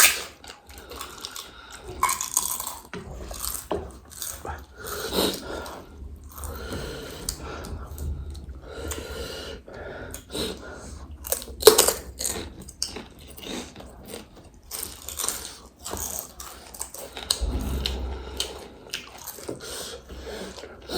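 Close-up eating sounds: crisp panipuri shells and chatpate crunching and being chewed, with many scattered sharp crackles and clicks.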